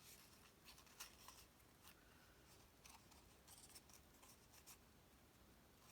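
Near silence with faint, scattered rustles and light ticks of cardstock pieces being handled and set in place.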